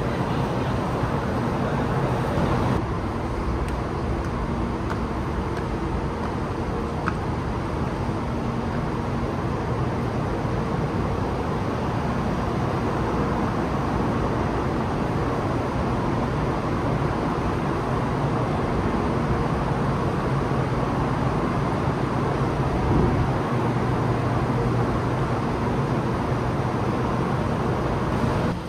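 Steady mechanical rumble with a constant low hum, unchanging throughout.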